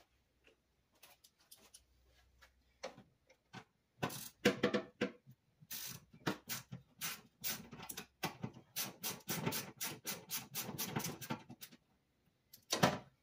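Socket ratchet clicking in quick runs of sharp ticks, turning a 10 mm bolt; the clicking starts about four seconds in and goes on for about eight seconds.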